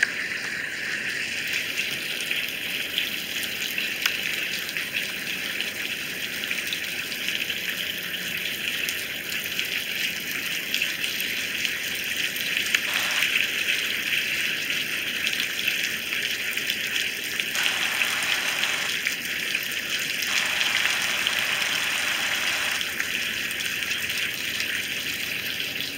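Heavy rain falling steadily in a dense, even hiss, swelling a little for a few seconds in the second half.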